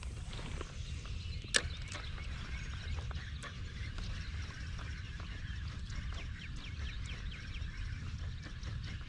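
Birds calling with many short, quick chirps over a steady low rumble, and one sharp click about a second and a half in.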